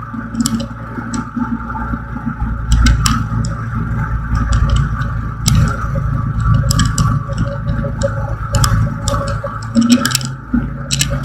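Light aircraft's piston engine running steadily with rushing air noise, heard from inside the cabin, with frequent sharp clicks and rattles over it. The engine note shifts slightly about ten seconds in.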